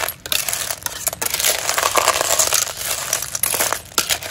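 Metal spatula stirring shell-on river snails (hoi sai) in an aluminium pot, the shells clattering and scraping against the pot with a crackly frying noise and many small clicks.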